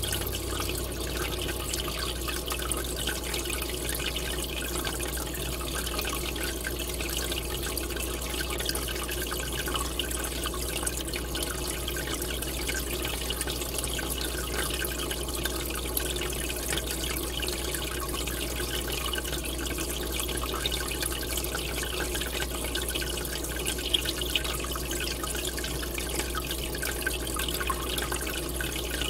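Aquarium aeration: a column of air bubbles churning the surface of the tank, a steady trickling, splashing wash of water with a steady low hum underneath.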